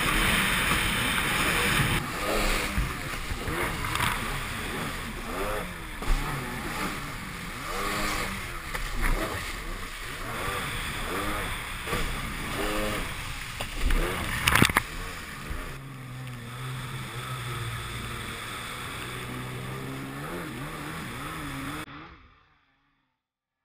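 Two-stroke twin engine of a 1993 Kawasaki 750SX stand-up jet ski, bored to 770cc with an R&D exhaust, revving up and down over and over, with rushing water spray and wind. There is a loud thump about two-thirds through, then a steadier, lower engine note, and the sound cuts off suddenly near the end.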